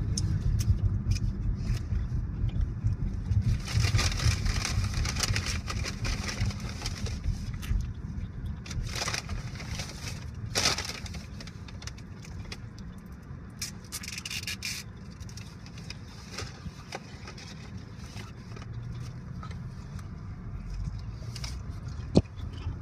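Engine and road rumble inside a moving GMC's cabin, dropping lower about halfway through as the car slows, with short bursts of rustling now and then.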